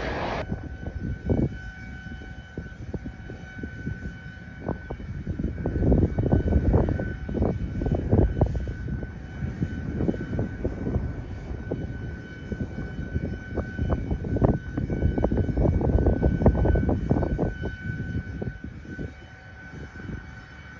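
Twin-engine jet airliner on final approach: a steady high engine whine throughout, under heavy gusty wind buffeting on the microphone.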